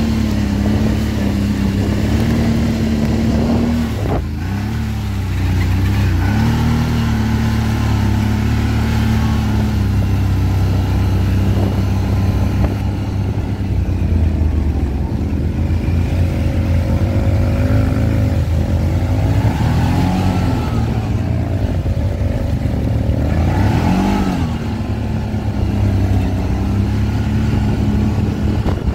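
ATV engine running under way, its note rising and falling with the throttle, with a short knock about four seconds in.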